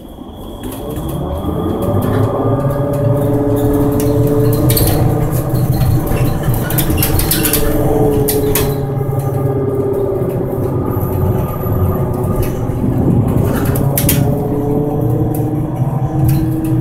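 Inside the passenger cabin of an Ikarus 412 trolleybus: the electric traction motor whines as the bus pulls away, its pitch climbing over the first couple of seconds and then dipping and rising again a few times with the bus's speed. Under it runs a steady low road rumble, with a few knocks and rattles from the body.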